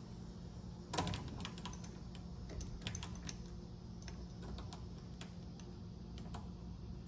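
Vevor MX400 mini lathe running with a steady low hum, under many light, irregular clicks and ticks from its handwheels and slides as the cutting tool is fed in to touch off on the face of the steel workpiece. A sharper click comes about a second in.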